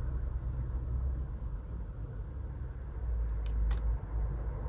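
A few faint clicks of costume jewellery pieces being handled, over a low steady rumble.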